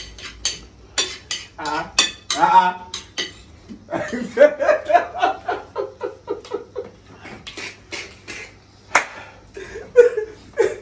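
Spoons clinking and scraping against plates of rice as people eat, in quick irregular clicks.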